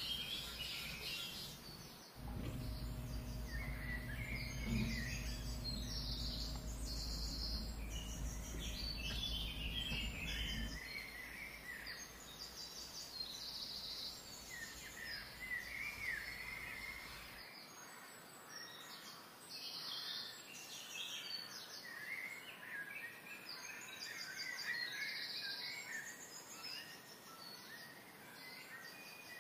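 Birds chirping repeatedly in short calls. A low, steady machine hum starts about two seconds in and stops about nine seconds later.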